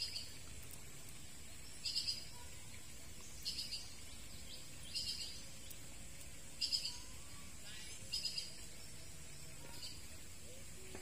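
A bird calling over and over: short, high, rattling chirps about every second and a half.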